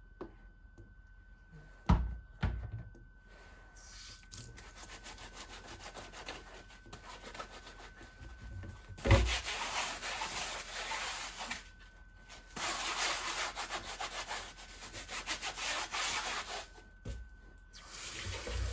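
Rapid back-and-forth rubbing or scraping strokes on a chopping board in two long runs, with a few sharp knocks. The loudest knock comes as the strokes begin.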